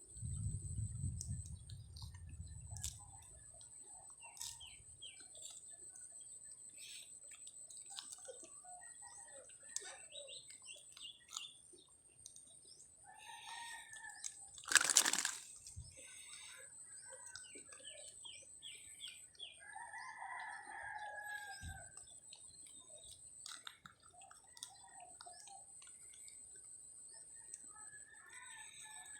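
Faint roosters crowing with scattered small bird chirps; one longer crow comes about twenty seconds in. A brief louder noise stands out about fifteen seconds in.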